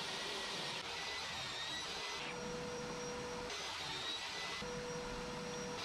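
DeWalt 10-inch table saw running and cutting MDF sheet: a steady whir with a thin whine, the sound changing abruptly a few times.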